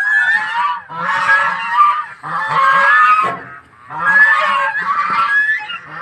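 Goose honking, with calls that bend in pitch, in about four bouts separated by short pauses.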